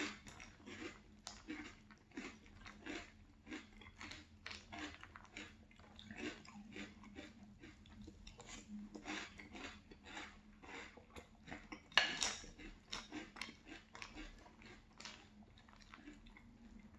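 Close-miked chewing of crunchy cereal in milk: a run of irregular crunches, a few a second, with a louder crunch about twelve seconds in.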